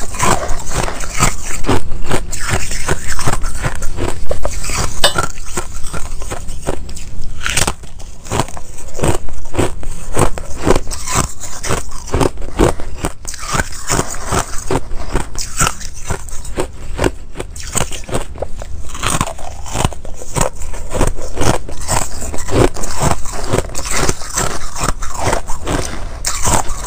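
Shaved ice crunching and crackling up close, a dense, irregular run of crisp crunches with no real pauses.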